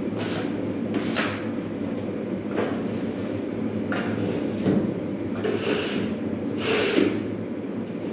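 A drywall knife scraping joint compound along plasterboard in about five short strokes, over a steady low rumble.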